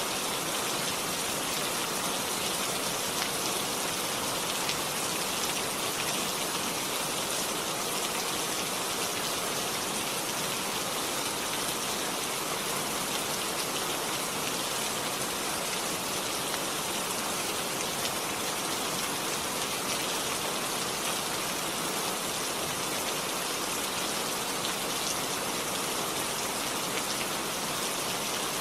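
Steady rainfall, an even hiss of many drops hitting a surface, unchanging throughout.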